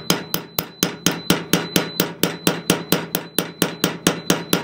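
Rapid, even hammer blows on a steel shear blade laid over a steel heel dolly, about four strikes a second, each a sharp metallic ring, with a thin high ring hanging steadily under them. The blade is being hammered to bend set back into a damaged shear.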